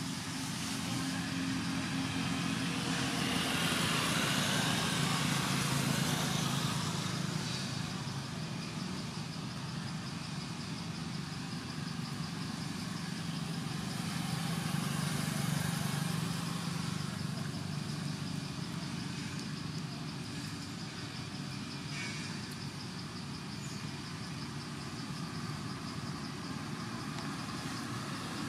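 Steady background engine rumble, swelling twice: a few seconds in and again about halfway through.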